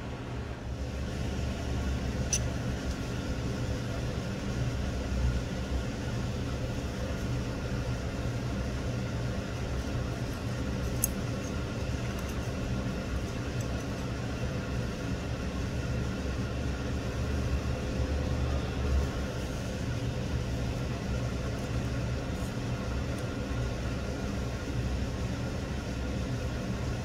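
A steady low rumbling hum of background machinery, with a couple of faint small clicks of metal knife parts being handled.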